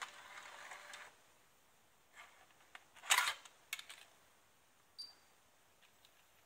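Scattered sharp clicks from a Pioneer Carrozzeria MEH-P005 car head unit being switched over from MiniDisc to FM radio, over faint hiss. The loudest click cluster comes about three seconds in, and a brief high beep comes near the five-second mark.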